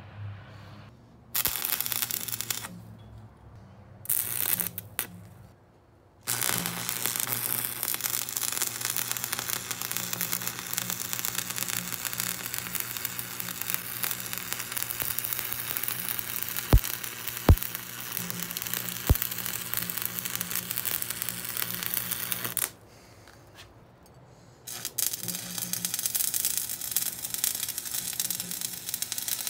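Stick-welding arc crackling and hissing as a steel flat-bar brace is welded on: a few short tack bursts in the first six seconds, then one long steady bead, a pause of about two seconds, and a fresh bead near the end. Three sharp pops stand out during the long bead.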